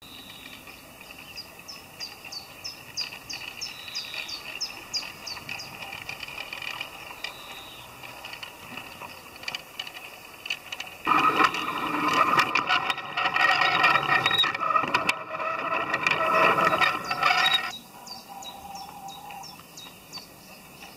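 Garden-scale model train running on outdoor track: the locomotive's motor and gearing whirring with a clicking rattle of wheels on rail. It grows much louder and busier about eleven seconds in as it passes close by, then drops back near the end.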